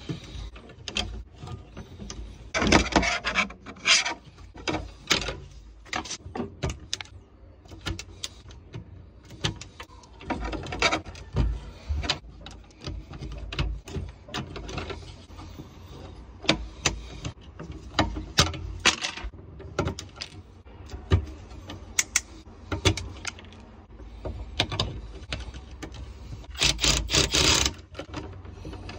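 Stiff electrical wire being handled and bent into a steel junction box: irregular scraping, rustling and clicks of the wires against the metal box, with a few louder scrapes. Near the end a Milwaukee Surge driver runs briefly, spinning a wire nut onto twisted conductors.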